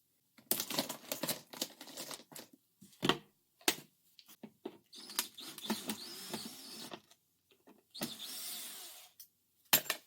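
Torx screws being worked out of a plastic car headlight housing: a run of sharp clicks and knocks of tool and plastic, with two longer rasping, whirring stretches around the middle and near the end.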